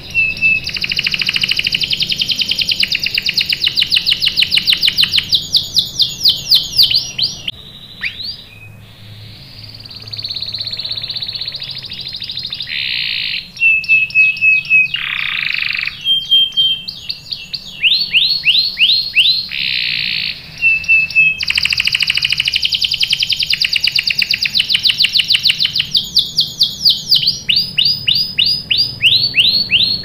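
Canary singing a long song of fast rolled trills, the notes repeated several times a second. About a third of the way in, the song drops to a softer, quieter passage, then the rapid trills return.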